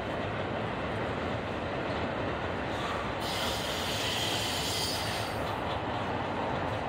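Norfolk Southern freight train rolling past, a steady rumble of its cars' wheels on the rails. A higher-pitched screech rides over it for about two seconds in the middle.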